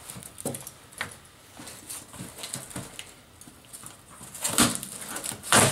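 Packaging being handled and opened: scattered clicks and rustling, with two louder rustles near the end.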